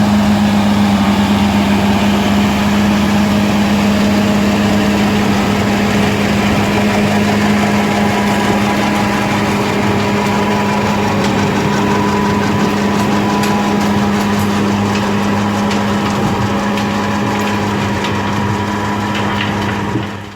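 A big tractor's diesel engine running at a steady speed, a constant drone, with scattered light ticks over it in the second half. It fades out quickly at the very end.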